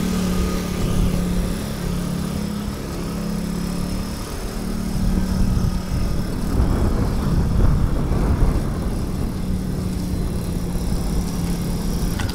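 Home-built go-kart's small petrol engine running as the kart is driven, with a steady note that grows louder for a couple of seconds past the middle as it is given more throttle.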